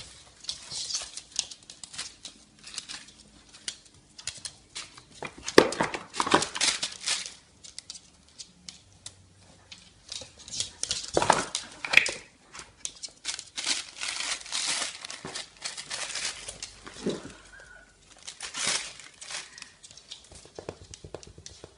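A dog rummaging through paper and cardboard, with irregular crinkling and tearing.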